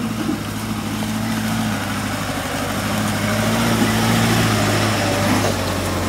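Suzuki Samurai's engine running at low, steady revs as it crawls through mud, slowly growing louder as the vehicle comes closer.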